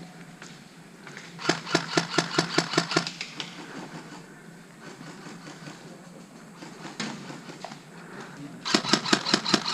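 Airsoft rifle firing two rapid strings of shots, about seven a second: one lasting about a second and a half, and another starting near the end.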